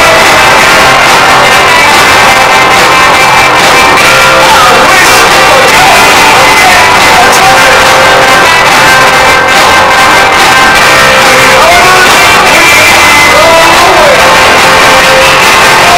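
Loud live rock band playing: electric bass, electric guitar and drums, with a man singing lead vocals.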